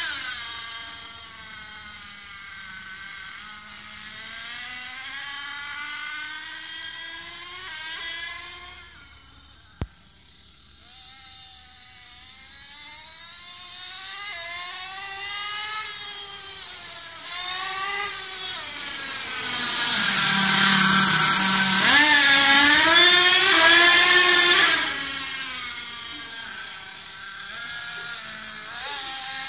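Toy RC monster truck's motor and gears whining, the pitch rising and falling as it speeds up and slows down. The whine fades as the truck drives away and is loudest about 20 to 25 seconds in, as it comes back close. A single sharp click about ten seconds in.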